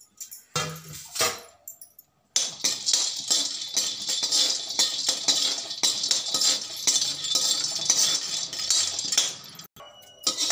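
A steel spoon stirring pistachios being dry-roasted in an aluminium kadai: a dense, rapid rattling and scraping of nuts on the metal pan for about seven seconds. It is preceded by a brief clatter of metal near the start.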